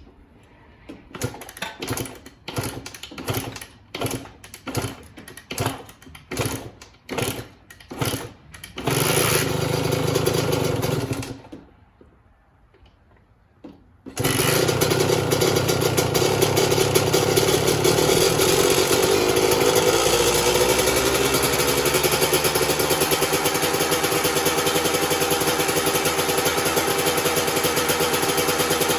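Kawasaki KX125's single-cylinder two-stroke engine being cold-started. A rapid series of strokes, about two a second, turns it over. It catches for about two seconds and dies. About three seconds later it fires and keeps running steadily.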